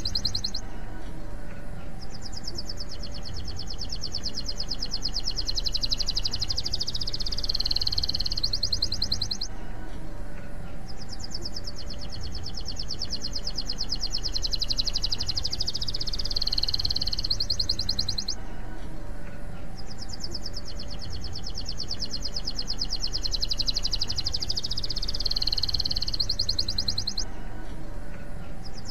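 Domestic canary singing long, high, rapid trills with a few lower warbled notes. Each phrase lasts about seven seconds and is followed by a short pause; three phrases repeat almost identically, and a fourth begins near the end. It is a lure song used to prompt young canaries to answer and learn to sing.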